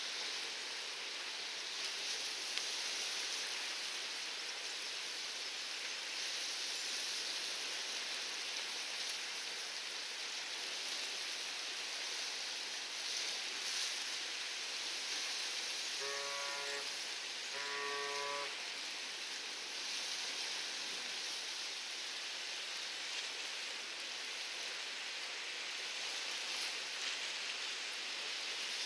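Steady hiss of rain and water, with two short steady horn-like tones, about a second each, partway through.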